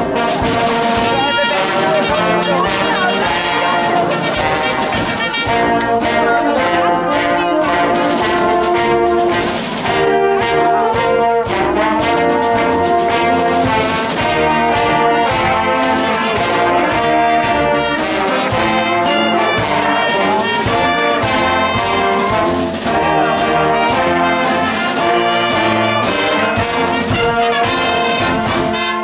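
Brass band playing: trumpets, trombones and sousaphones over marching snare drums and a bass drum keeping the beat.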